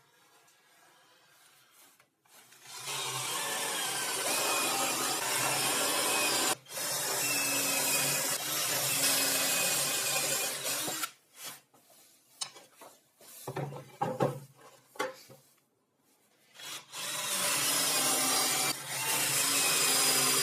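A woodworking power tool running on wood in two long stretches, with irregular knocks and clatter of handled wood in the gap between them.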